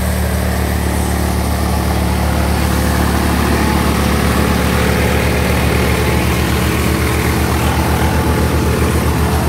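A Swaraj 855 FE tractor's three-cylinder diesel engine running steadily at about 1600 rpm while driving a threshing machine. The engine is taking the thresher's load without strain.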